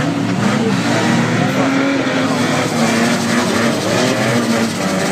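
Several banger racing cars' engines running and revving together on the track, their pitches rising and falling against each other.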